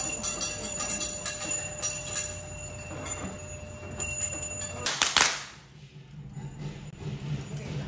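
Bells jingling continuously with rapid small clinks. About five seconds in they cut off suddenly and the sound becomes much quieter.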